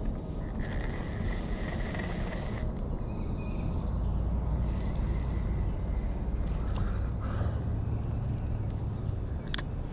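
A spinning reel being wound and cast over a steady low rumble, with a sharp click near the end.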